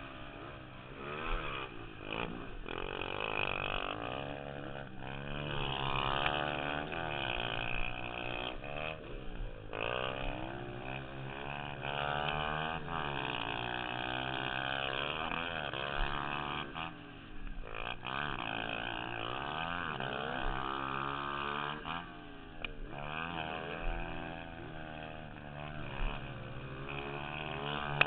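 Dirt bike engine revving hard and easing off again and again, its pitch climbing and dropping every second or two as the rider accelerates, shifts and brakes around a motocross track.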